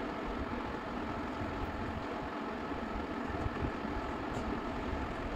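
Steady background hum like a running machine, with a few faint light clicks.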